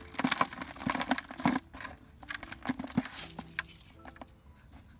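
A hand scooping and crumbling soil and compost in a plastic bucket: gritty rustling and crackling, busiest in the first two seconds, then thinning to scattered ticks.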